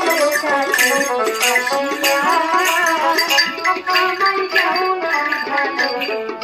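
Music: a melody line over a steady, repeating drum beat.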